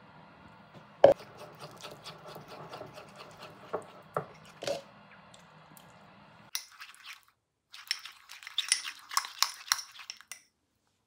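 A hard knock on the worktop about a second in, then a few lighter knocks as water is poured from a plastic jug into a ceramic bowl. In the second half, a spoon clinks rapidly against the ceramic bowl, stirring Nutella thinned with a little water.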